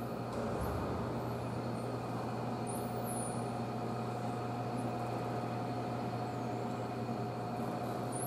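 Steady mechanical hum of aquarium tank machinery, a noisy drone with a few constant tones running through it, and a faint high sweeping chirp about three seconds in.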